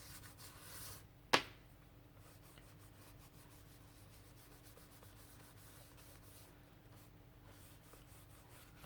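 Faint rubbing of paint being worked onto a paper page by hand, with one sharp click just over a second in.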